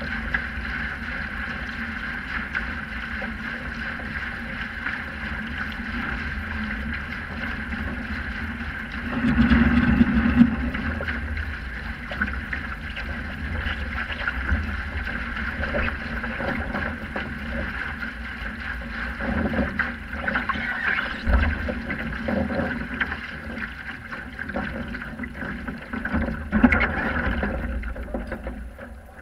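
Water rushing along a Sprint 15 catamaran's hull as it sails, with wind noise on the microphone. It swells louder about a third of the way in and again near the end.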